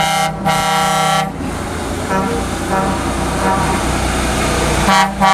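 Heavy truck horn sounding a long blast of about a second at the start and a shorter blast near the end. Between the blasts the diesel engine of an approaching heavy truck runs, its low rumble growing as the truck draws near.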